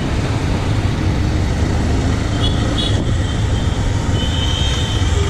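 Road traffic noise while riding through city streets: a steady, loud rumble of engines and road with no break. A few faint short high tones come in around the middle and near the end.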